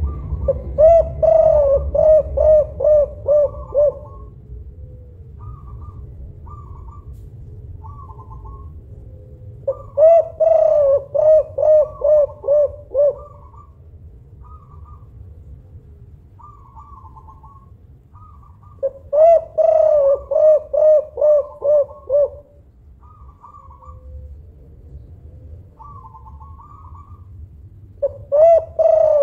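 Spotted dove cooing: loud phrases of about eight quick, evenly spaced coos, repeated roughly every nine seconds, with softer, higher single notes between the phrases. A low rumble runs underneath.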